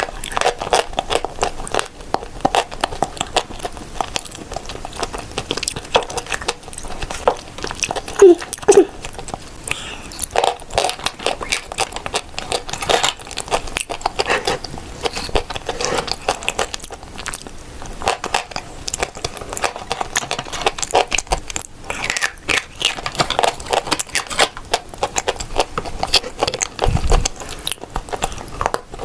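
A person biting and chewing dry edible clay close to the microphone: dense, irregular crunching and crackling throughout, with the loudest bite about eight seconds in.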